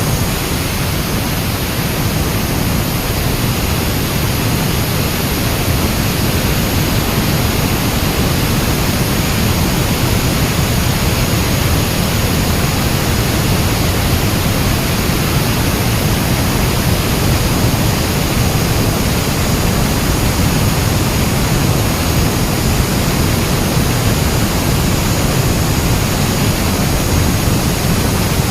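Bohai 400 concrete cutting saw running steadily: a loud, even grinding noise with no change throughout.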